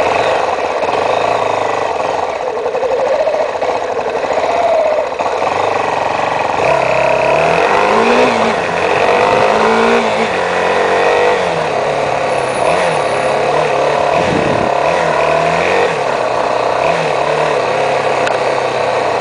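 Motorcycle engine accelerating through the gears while riding, its pitch rising and dropping back again and again, over steady road noise.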